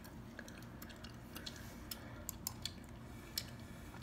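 Gum being chewed close to the microphone: small, irregular wet clicks, with a sharper click near the end.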